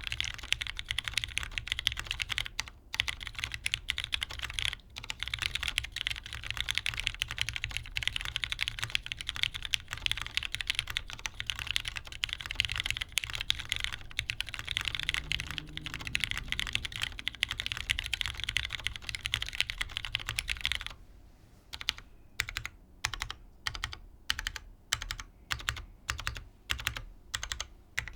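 Typing on a top-mount Tora TKL mechanical keyboard with broken-in, lubed Cherry MX Brown tactile switches on a polycarbonate plate and GMK keycaps: fast, continuous clacking, which changes about three quarters of the way through to slower, separate keystrokes about two or three a second.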